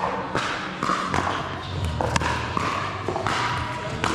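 Pickleball paddles striking a plastic ball: a string of sharp, irregular pops from the play on several courts, echoing in a large indoor hall.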